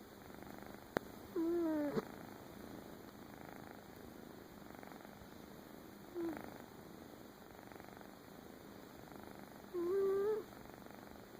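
Domestic cat purring steadily, broken three times by a short pitched squeak, the first and last about half a second long and rising slightly, the middle one briefer. A sharp click sounds about a second in.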